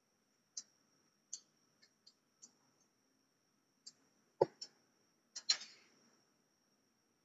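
Handling noises: a string of light clicks and taps, a heavier knock about four and a half seconds in, and a short scraping rustle about a second later, over a faint steady high whine.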